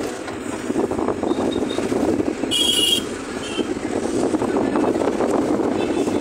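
Running engine and road noise of a moving vehicle, heard from inside it, with a rattling texture throughout. A brief high-pitched sound cuts in about two and a half seconds in.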